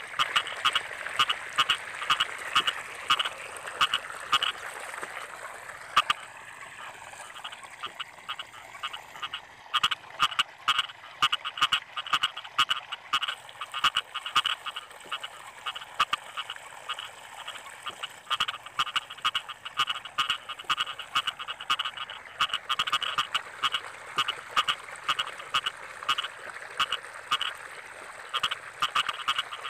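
Rice-field frog calling: a long series of short croaks repeated several times a second, with a brief break about five seconds in.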